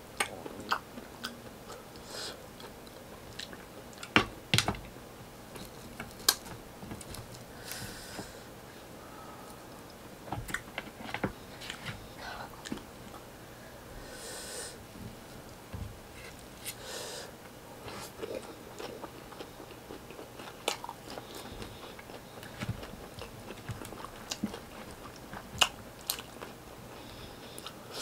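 Close-miked chewing and mouth sounds of eating rice and fried tilapia by hand, with many short wet smacks and clicks at irregular intervals.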